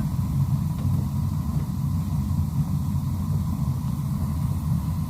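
Gas burners of a Laars 160,000 BTU floor-model boiler firing, a steady low rumble with a faint steady tone above it.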